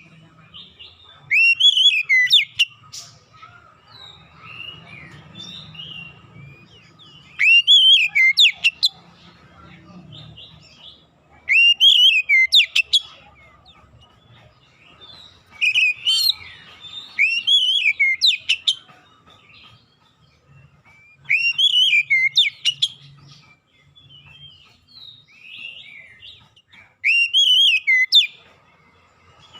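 Oriental magpie-robin (kacer) singing: loud whistled phrases about every four to six seconds, each a rising-and-falling whistle followed by quick, sharply upswept notes, with quieter chirps between them.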